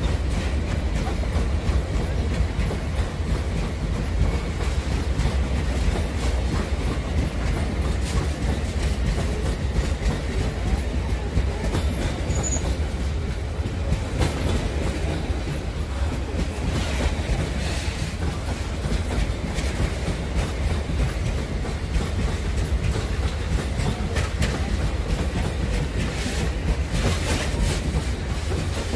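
Freight wagons of a pig-iron train rolling past close by: a steady low rumble of steel wheels on rail with a running clickety-clack of wheels over rail joints, the clicks coming thicker near the end.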